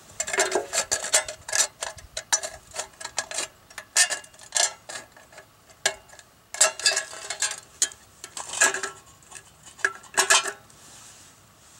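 Fiskars tin snips cutting through the thin steel wall of a number 10 tin can: irregular runs of sharp metallic snips and crunches as the blades bite along the rib, with the can sheet ringing faintly. The cutting stops about a second before the end.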